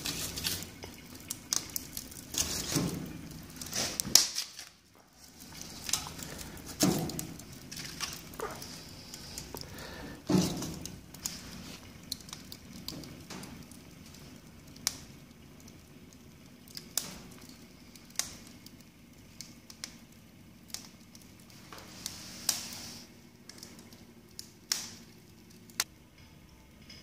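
Pieces of broken pallet wood knocked into the open firebox of a Lincar wood-burning cook stove, with several louder knocks in the first ten seconds or so. After that, the wood fire crackles with scattered sharp pops.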